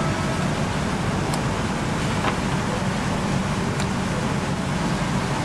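Steady factory-floor noise: a low hum under an even hiss of air, with a few faint clicks.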